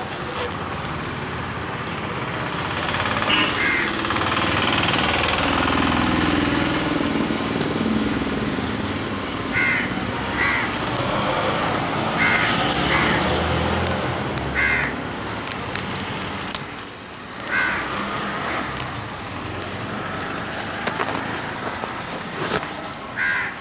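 Crows cawing in short, scattered calls, about eight in all, over a steady hum of street traffic.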